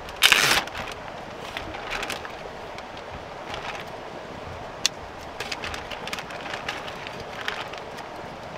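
Camp-cooking handling noises: a short loud rustle just after the start, a few softer rustles and one sharp click, over a steady faint hiss.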